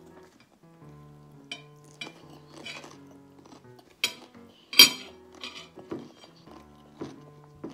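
Metal spoon and fork clinking and scraping against a ceramic plate while eating fried rice: about six sharp clinks, the loudest about five seconds in.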